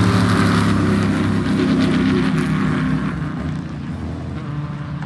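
Off-road race car engine running hard at steady revs, growing quieter after about three seconds.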